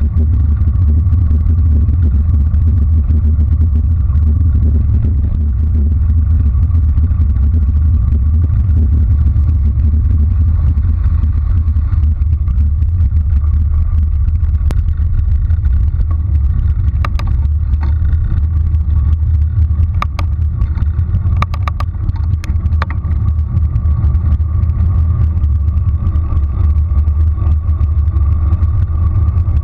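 Wind buffeting a GoPro's microphone on a bicycle speeding downhill: a loud, steady low rumble with a faint steady hum above it. A cluster of sharp clicks comes a little past halfway.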